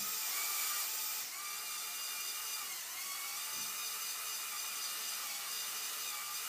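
Electric motors and plastic gearing of a motorized Lego Technic Liebherr R 9800 excavator whining as the boom and bucket move. The pitch shifts as the motors change speed, once sharply about a second in and again with a glide near three seconds.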